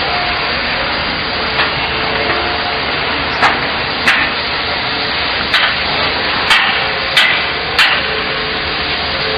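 Hammer blows on the steel frame of a block machine's belt conveyor during assembly: a couple of light taps, then six sharp strikes about a second apart, over a steady background noise.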